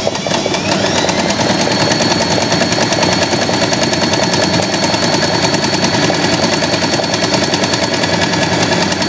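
Usha Janome Excella electric sewing machine running fast and steadily, its needle stitching through cloth in an embroidery hoop for free-motion embroidery with the presser foot removed and a plate fitted over the feed. The motor whine rises in pitch over about the first second as it speeds up, then holds steady.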